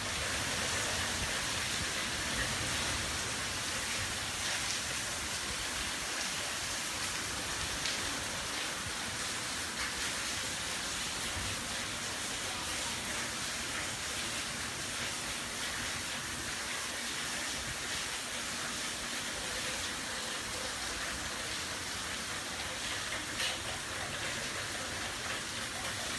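Heavy hurricane rain and wind, a steady dense hiss with an unsteady low rumble underneath.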